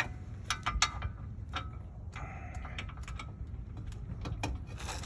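Irregular metallic clicks and clinks of a socket and hand tools working on a rear hub bolt. The loudest click comes right at the start, and there is a short scrape about two seconds in.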